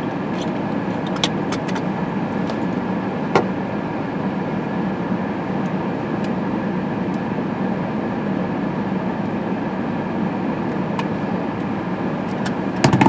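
Steady running noise of a car heard from inside the cabin, a constant low hum under an even rush, with a few sharp clicks early on and a quick cluster of clicks near the end.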